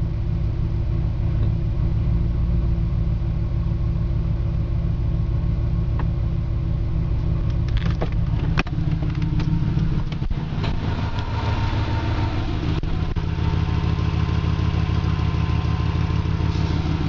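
Mercedes engine idling steadily with an exhaust leak, while the air suspension compressor runs to raise the car. A few clicks come between about six and nine seconds in, and a higher hiss joins about ten seconds in.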